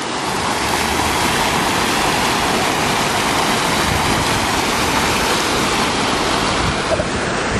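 Ornamental fountain jet shooting water up and splashing back into a pond: a steady rush of falling water.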